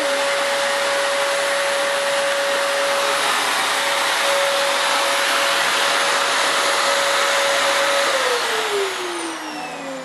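Canister vacuum cleaner running steadily with a high motor whine over rushing air, then winding down about eight seconds in, its whine falling in pitch as the sound fades.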